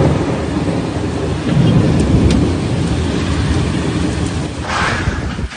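Thunderstorm with strong wind and heavy rain: a deep, continuous rumble with rain noise over it, swelling about a second and a half in, and a brief hiss near the end.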